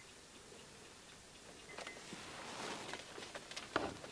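Faint handling of hand tools, a steel vernier caliper and a cast pickle fork: soft rustling with a few light clicks, starting about a second and a half in.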